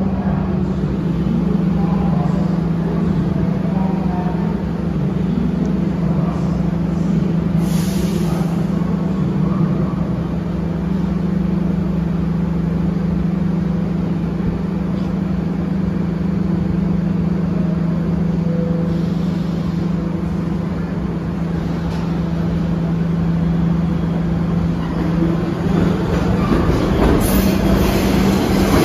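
R62 subway train running: a steady low hum over continuous running noise, with a brief hiss about eight seconds in, the noise building near the end.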